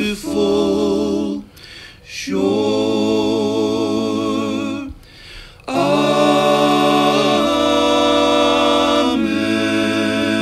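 Four-part male a cappella harmony, one man's voice multitracked into all four parts, singing long held chords. The chords break off briefly twice, about two and five seconds in, then a final chord is held for about six seconds as the closing cadence.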